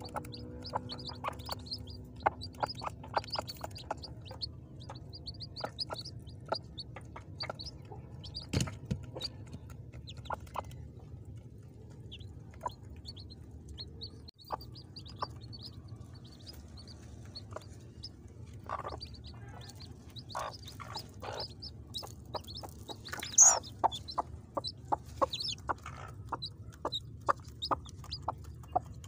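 Newly hatched chicks peeping in short, high chirps throughout, with a hen clucking among them and several louder clucks about two-thirds of the way through.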